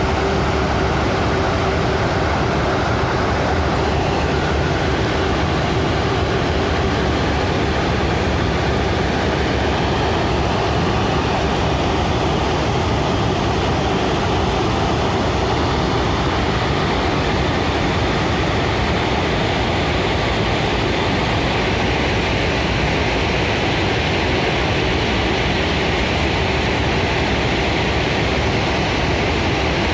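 A large railway track maintenance machine, a ballast cleaning machine, working on the line: loud, steady engine and machinery noise. A steady tone stands out at the start and then fades.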